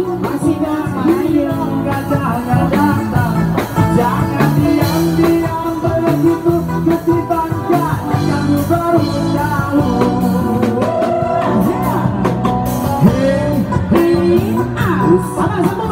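Live amplified band playing a song: a male vocalist sings into a microphone over electric bass and drums.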